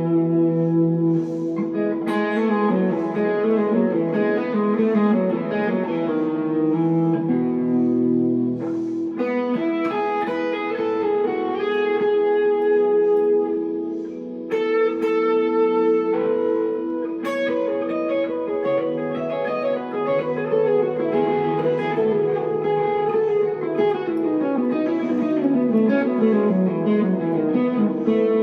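Electric guitar, a 1963 Fender Telecaster through a Glaswerks Zingaro valve amp, playing a slow melody of ringing single notes and chords that sustain into each other. A run of notes falls in pitch near the end.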